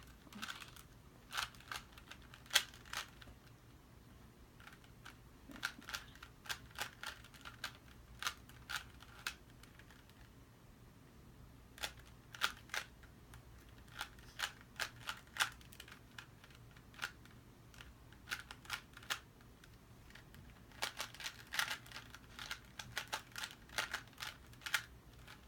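Rubik's Cube layers being turned by hand during a solve: quick, irregular plastic clicks in bursts, broken by a couple of short pauses.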